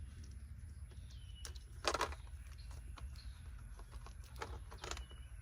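Hands working at a tape-sealed plastic container: a few light clicks and one short rustle about two seconds in, over a low steady rumble.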